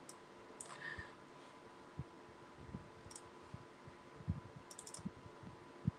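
Faint scattered clicks of a computer being operated while photos are paged through. There are soft low knocks in between and a quick run of about four ticks late on.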